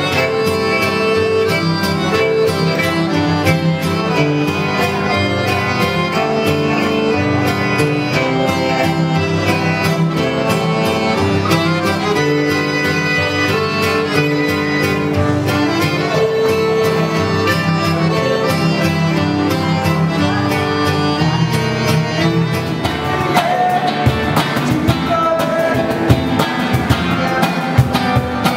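Live acoustic folk music: violin, accordion and acoustic guitar playing a tune together, with long held notes. About 23 seconds in it changes to a strummed acoustic guitar with hand-drum strokes.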